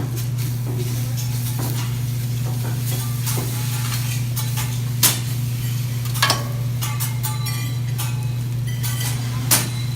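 Food sizzling and being stirred on a hot teppanyaki griddle, with a steady low hum underneath and a few sharp metal clinks, about five, six and nine and a half seconds in.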